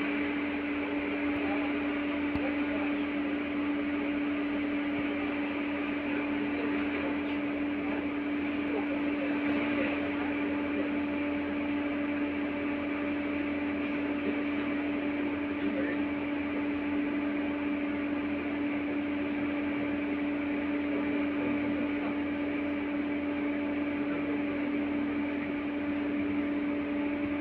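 Inside the passenger cabin of an LVS-86 tram: a steady electrical hum that holds one pitch throughout, over a continuous rumbling noise of the running tram.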